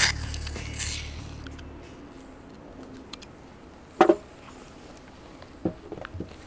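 Background music fading out, then a sharp knock about four seconds in as a metal CO2 pistol magazine is set down on a cloth-covered table, followed by a few lighter knocks near the end.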